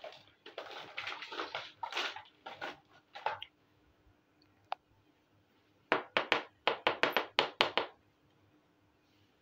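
Small plastic and clay miniature toy kitchen pieces handled by hand: a few seconds of short rubbing and scraping sounds, a single click, then a quick run of about a dozen sharp clicks and taps as pieces are knocked together and set down.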